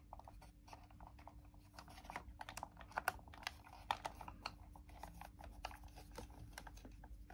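Small screwdriver clicking and scraping in the heads of tiny screws as they are driven into a model car's door sill, with light handling of the part: many faint, irregular clicks.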